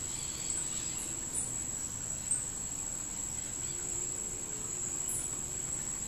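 An insect's steady high-pitched trill, unbroken throughout, with a few short high bird chirps over it.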